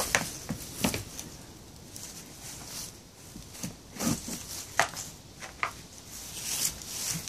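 Goats sparring head to head on straw bedding: scattered sharp knocks as horns and heads meet, over shuffling hooves and rustling straw.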